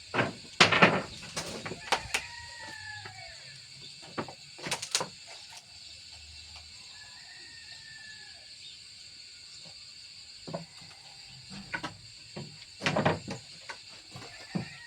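Irregular sharp knocks and clatters, a handful of them with the loudest near the start and again near the end, over a steady chirring of crickets.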